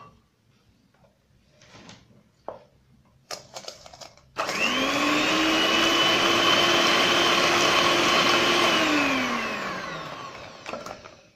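A few light knocks, then about four seconds in an electric hand mixer starts, its motor whirring up quickly to a steady speed as its beaters whip eggs and sugar in a stainless steel bowl. Near the end the whir falls in pitch and dies away as the mixer winds down.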